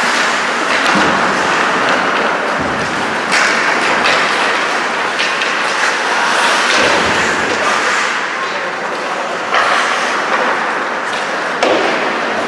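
Ice hockey play: skates scraping and carving on the ice with a steady rush of noise, broken by several sharp knocks of sticks, puck and boards.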